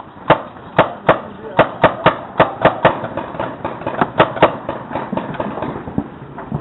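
Paintball markers firing: a quick, irregular string of sharp pops, about a dozen in the first four and a half seconds, then only an occasional one.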